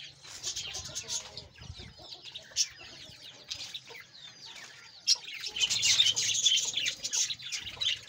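A colony of budgerigars chattering and chirping, mixed with the peeping of young chicks; the chatter gets louder about five seconds in.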